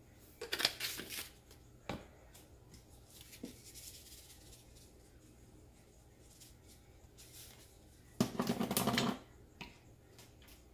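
Spice shaker of garlic powder shaken over a baking dish in two short bursts, about half a second in and again, louder, near the end, with a light click and soft handling noises between.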